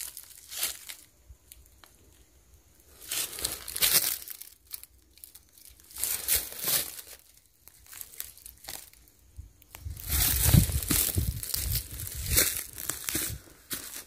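Footsteps crunching and rustling through dry leaf litter and debris, in irregular bursts with short quiet pauses between.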